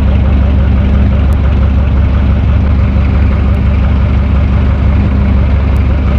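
Electric fan running steadily: a loud, even low hum with a rush of moving air.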